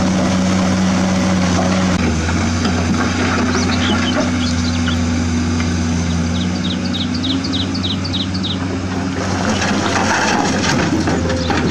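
Electric gear motors of a Huina remote-control toy excavator whirring steadily, their pitch stepping as the arm and boom change movement. Near the end soil pours from the bucket into the plastic bed of a toy dump truck with a brief rattling hiss, and a bird chirps a quick run of notes in the middle.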